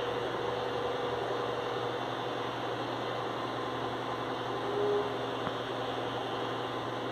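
Cordless electric hair clipper running with a steady buzzing hum while cutting hair in short strokes, with a brief change in tone about five seconds in.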